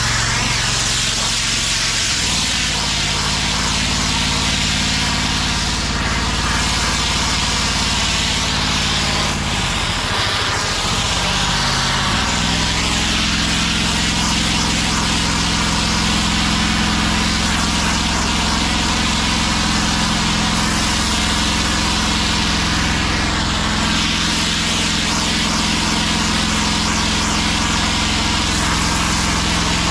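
Pressure washer's gas engine running steadily under the continuous hiss of high-pressure water spraying. The engine note dips and settles into a different steady note about ten to twelve seconds in.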